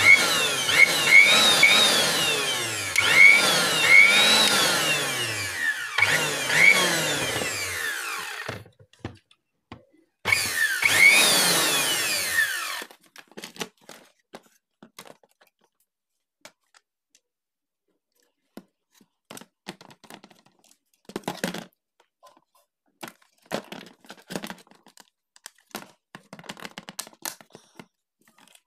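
A small electric motor whirring loudly in two bursts, its pitch rising and falling over and over. After that come scattered light clicks and knocks of plastic parts being handled.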